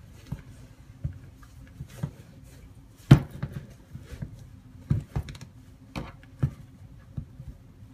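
Irregular soft knocks and rustles of handling as the toe box of a sneaker is stuffed, with the loudest knock about three seconds in.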